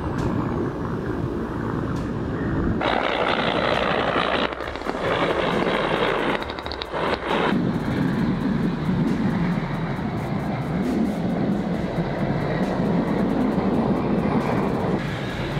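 Helicopter engine and rotor noise as it flies past. About three seconds in the sound changes abruptly to a loud rushing hiss, and from about halfway through a steady low engine drone takes over.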